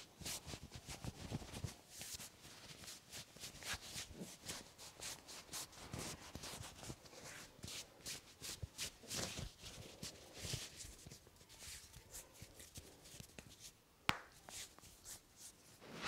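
Hands rubbing and kneading a man's shoulder and arm through his shirt, a soft, irregular rustling and rubbing. About two seconds before the end comes one sharp click as a finger joint cracks during the hand massage.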